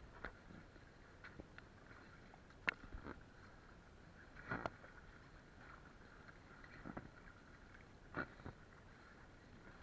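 Paddling splashes: a bamboo pole dipped into the sea on alternate sides of an inflatable float, making short, sharp splashes every second or two over a faint steady wash of water.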